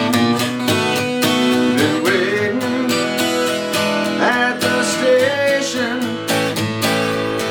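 Acoustic guitar strummed in a steady rhythm, with a melody line sliding up and down in pitch over it through the middle.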